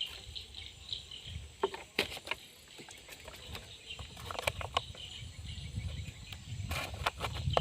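Scattered light clicks and taps from fishing gear being handled in a small boat, with faint insect chirping behind and a low rumble building toward the end.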